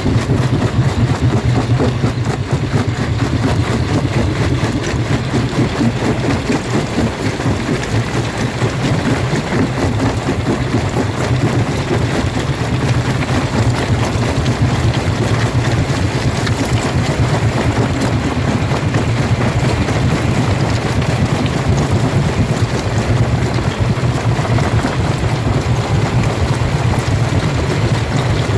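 Jaw rock crusher running and crushing stone: a steady low drone under a continuous dense clatter.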